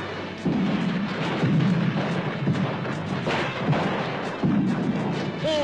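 Battle noise of repeated gunfire and blasts, with music underneath.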